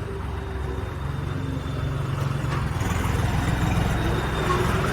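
Diesel tractor engine running steadily, its low hum slowly growing louder.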